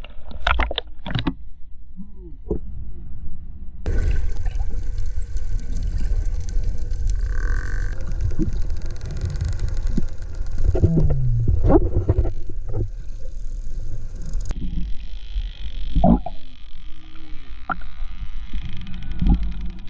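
Dolphins calling underwater: scattered sharp clicks and short gliding whistle-like calls, one falling in pitch about eleven seconds in, over a low rumble. The background changes abruptly twice, as if separate recordings were joined.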